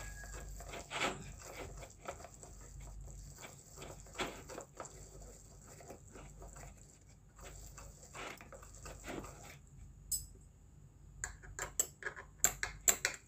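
Light, irregular clicks and scrapes from a red plastic hand-cranked meat chopper being handled. Near the end come sharper clicks of a metal fork scraping minced chicken inside it.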